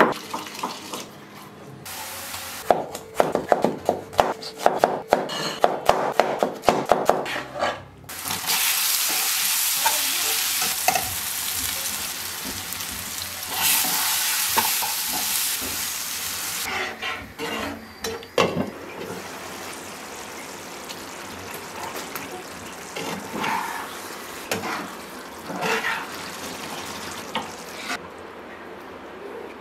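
Garlic being pounded in a granite stone mortar, with rapid sharp pestle strikes, a few a second. About eight seconds in, onion-tomato masala starts sizzling loudly in hot oil in a frying pan. From around seventeen seconds the sizzle eases off, and a spatula and then a spoon scrape and stir through the thickening curry.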